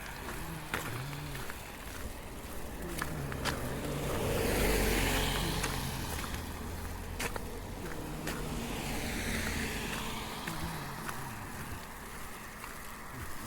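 Road traffic passing close by: one vehicle's tyre and engine noise swells up to a peak about a third of the way in and fades, and a second, fainter vehicle passes later. Light footstep clicks sound throughout.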